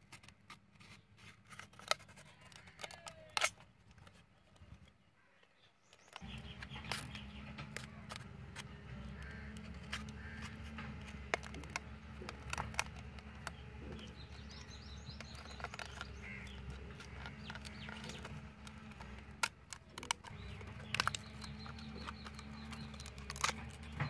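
Utility knife cutting into a thin plastic drink bottle: scattered sharp clicks and crackles of the plastic as it is cut and handled. A steady low hum sets in about six seconds in.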